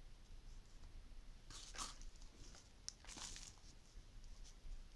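Faint rustling and scraping of dry, crumbly potting soil and a thin plastic cup as gloved hands firm a seedling in, with a small click about three seconds in.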